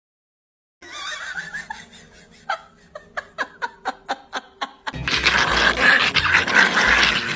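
A run of quick sharp clicks, about four or five a second, then loud laughter from about five seconds in.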